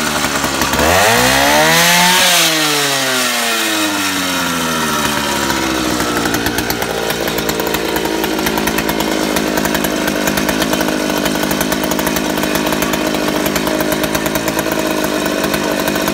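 Vintage Solo 60135 chainsaw's 92 cc two-stroke engine running. It is revved up once, peaking about two seconds in, drops back, then settles into an even, pulsing idle that sounds like a motorcycle.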